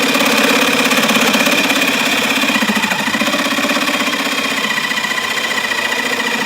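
A power saw cutting through the plastic end housing of a refrigerator water filter, running steadily with a fast, even pulse.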